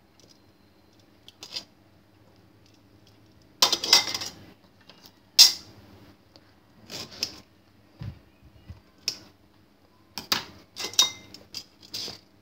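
Metal tongs clinking and scraping against a ceramic bowl as food is placed in it: a series of irregular clatters, loudest about four and five and a half seconds in, with a quick run of clinks near the end.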